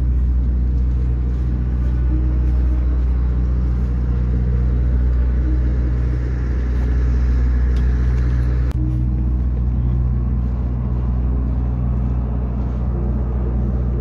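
Steady low engine drone of heavy construction machinery running. A higher hiss rises over it and cuts off abruptly about nine seconds in.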